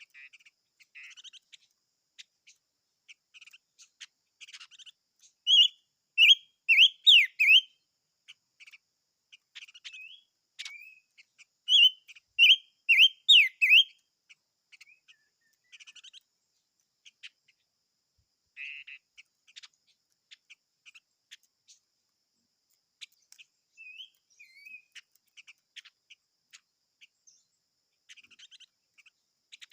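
A small songbird, the kind sold in Vietnam as 'chim ngũ sắc' (five-coloured bird), singing: two loud phrases of five or six rapid whistled notes, about six seconds apart, with soft scattered chirps between and after them.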